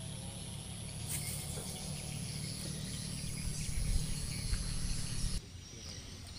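Swamp ambience: a steady high insect whine over the buzz of other insects and a low wind rumble on the microphone, with a few dull thumps near the middle. The insect whine cuts off abruptly about five seconds in, and the sound turns quieter.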